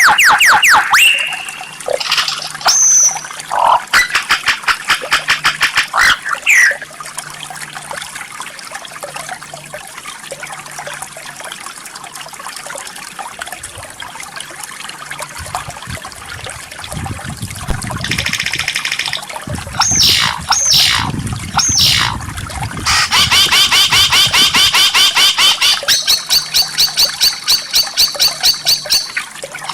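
White-rumped shama (murai batu) song: varied whistles and sliding notes, with long runs of fast repeated notes in the last third, over a steady trickle of water.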